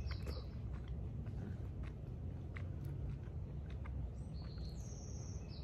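Quiet backyard ambience: a steady low rumble, with a bird's high call stepping up in pitch at the start and again near the end. A few faint clicks are scattered between the calls.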